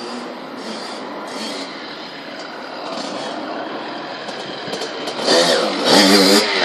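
Kawasaki KX65 two-stroke dirt bike engine running, faint at first, then much louder about five seconds in as the bike comes up close, its pitch rising and falling as the throttle is worked.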